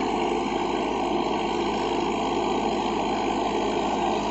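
Farmtrac 60 Supermaxx 55 hp tractor's diesel engine running steadily under load as it pulls an 11-tine cultivator through the soil, throttled back to about 1600 rpm.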